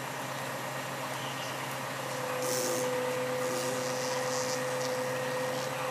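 Crane's engine running steadily; about two seconds in a steady whine joins and the engine gets a little louder, with a few short hisses after.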